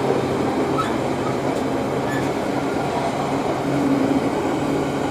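Class 66 diesel locomotive running under power at the head of a container freight train, its engine a steady low drone under the general noise of the train.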